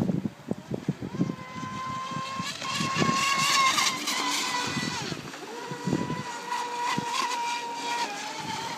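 Electric RC mono-hull boat's brushless motor (Leopard 4082 1600kv on a 6S LiPo) whining at full speed, with the hiss of its spray. The whine is loudest as the boat passes close about three to four seconds in, drops away briefly just after, then holds steady again. A few low wind buffets hit the microphone in the first second.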